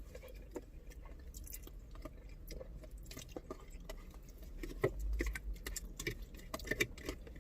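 Close-up eating sounds: chewing with scattered small wet clicks and ticks of food and mouth, over a faint low steady hum.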